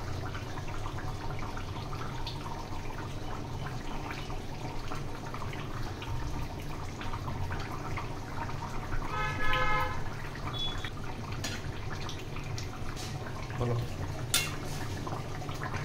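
Chicken curry simmering and bubbling in an aluminium kadai over a gas burner, with a steady low rush under it. A brief ringing tone sounds about nine seconds in, and a spatula clicks against the pan near the end.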